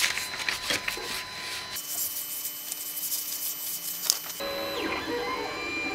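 A sheet of paper rustling and scraping as it is slid under the nozzle of a JGaurora A5 3D printer during assisted bed leveling. From about four and a half seconds in, the printer's stepper motors whine, the pitch rising and falling as the axes move.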